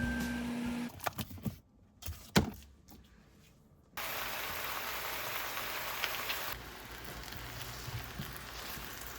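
A few clicks and knocks of kitchen utensils, then food hitting a hot pan and frying: a sudden steady sizzle about four seconds in, loudest for the first couple of seconds before settling to a lower sizzle.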